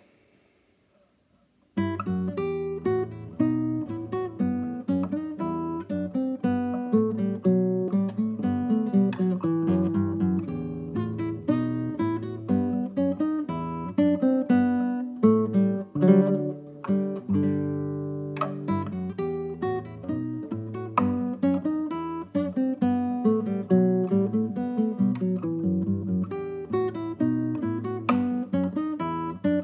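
Cutaway nylon-string classical guitar played fingerstyle: a bourrée in plucked notes with a moving bass line under the melody, starting about two seconds in. About halfway through it stops on a held chord for a moment, then goes on.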